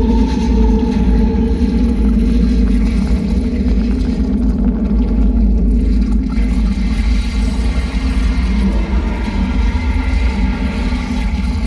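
A loud, sustained low drone of soundtrack music over loudspeakers, with deep rumble and held tones and no distinct firework bangs.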